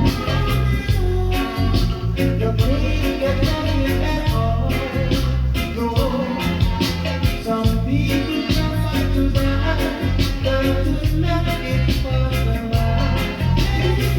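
Reggae music with a heavy bass line and a steady beat.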